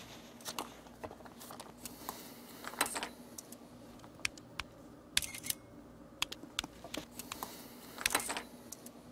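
Scattered light clicks and taps of mobile-phone keys being pressed, with a few brief rustles of paper being handled.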